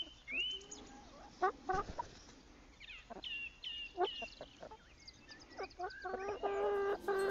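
Several hens clucking and calling close up: a scattered run of short rising calls and brief squawks.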